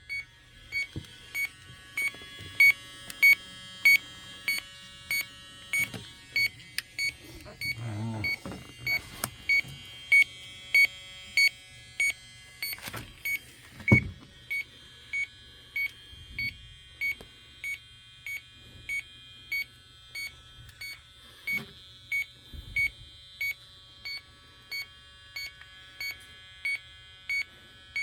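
Electronic refrigerant leak detector beeping steadily, about one and a half short high beeps a second, during a leak search on an R22 system's indoor coil, with a few knocks and handling noises in the middle.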